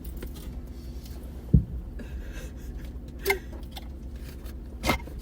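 Steady low hum inside a car, with three brief clicks and knocks of something being handled. The loudest knock comes about one and a half seconds in.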